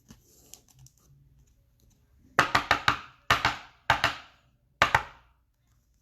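Football trading cards being handled and flipped through, giving a run of sharp clicks and snaps: a quick cluster of four, then three single clicks.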